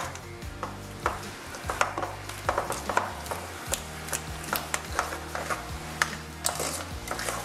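Thick batter being beaten by hand in a glass bowl: a utensil clicking and scraping against the glass in quick, irregular strokes, several a second.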